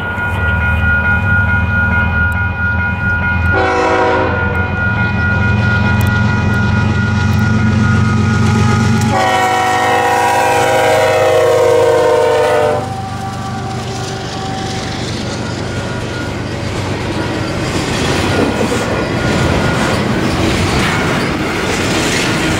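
Diesel freight locomotives approaching and passing with engines running, sounding a chord horn: a short blast about three and a half seconds in, then a long blast from about nine to thirteen seconds that sags slightly in pitch as the locomotive goes by. Then the double-stack intermodal cars roll past, wheels clacking and rumbling over the rails.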